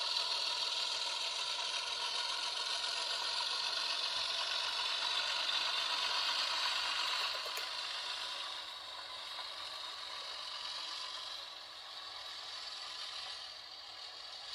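Model diesel switcher locomotive running along the layout track: a steady mechanical whir and rattle from its motor, gears and wheels on the rails, getting quieter about halfway through.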